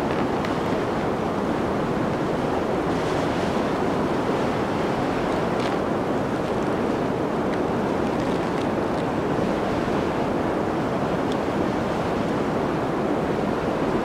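Snow-blizzard wind ambience: a steady, even rush of wind noise that holds constant without swelling or fading.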